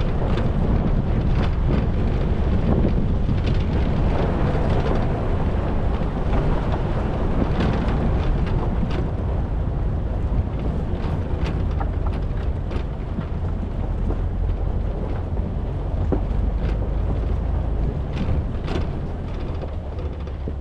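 Jeep driving along a rough off-road trail: a steady low rumble of engine and tyres, with wind buffeting the microphone and scattered sharp clicks and knocks throughout.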